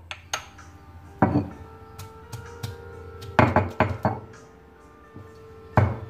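Stone roller knocking against a stone grinding slab (ammikkallu) as shallots are crushed: a series of sharp, irregular knocks, several in quick succession midway, over faint background music.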